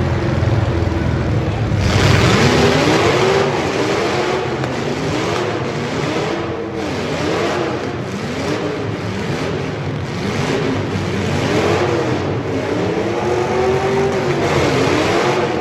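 Demolition derby cars' engines running loud, one engine revved up and down over and over, about once a second, with dust kicking from its wheels.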